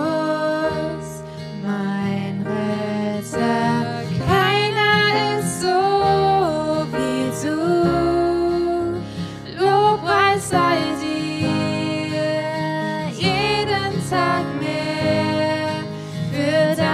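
A worship song sung with acoustic guitar accompaniment, the voice carrying a slow melody of held, gliding notes.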